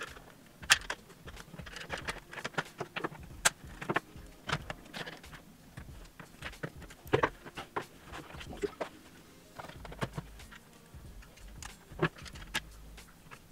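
Irregular clicks, clacks and light rattles of computer hardware being handled as a graphics card is fitted into a desktop PC case, with a few sharper knocks among them.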